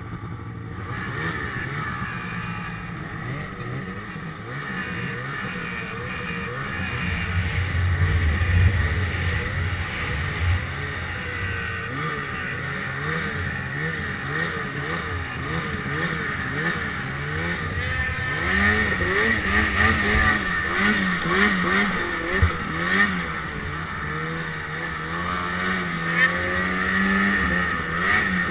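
Ski-Doo Summit XP 800 two-stroke snowmobile engine running under way through deep snow, its revs rising and falling over and over.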